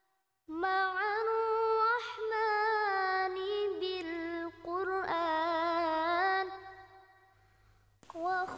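Background singing: one high voice chanting a slow, unaccompanied melody in long, wavering held notes. It fades out about seven seconds in, and a new phrase starts near the end.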